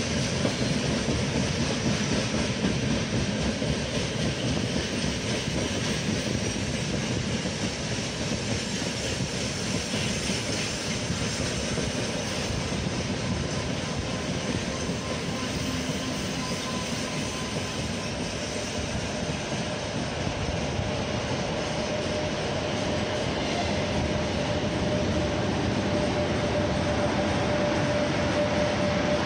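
Freight train of loaded gondolas and boxcars rolling past, a steady rumble and clatter of wheels on the rails. A faint steady whining note comes in over the last few seconds as the sound grows a little louder.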